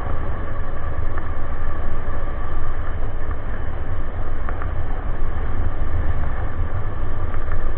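Strong wind buffeting the microphone of an electric bike moving fast, a loud steady rumble with a faint steady hum of the drive underneath.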